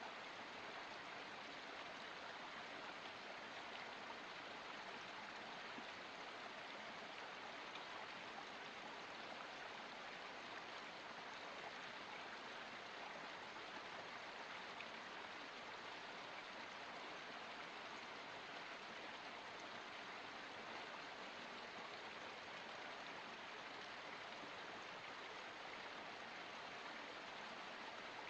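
Small forest stream running, a steady, even rush of flowing water with no distinct splashes.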